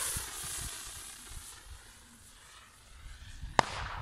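Firework rocket's hiss fading as it climbs away, then a single sharp bang about three and a half seconds in as it bursts, trailing off briefly.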